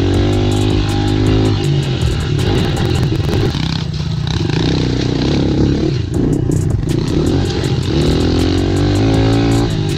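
Dirt bike engine running under throttle on a trail ride. It eases off about a third of the way in while the bike rolls down a rocky drop, then picks up again near the end.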